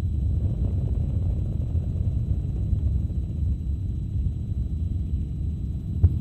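News helicopter's rotor and engine noise heard from inside the cabin: a steady low rumble, with one short click near the end.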